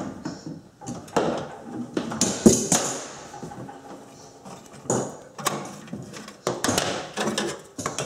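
Hand screwdriver working a small screw out from under an over-the-range microwave's sheet-metal front edge: irregular clicks, knocks and scrapes of metal on metal.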